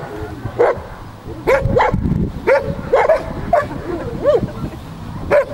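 Belgian Malinois barking: about nine short, sharp barks at uneven intervals.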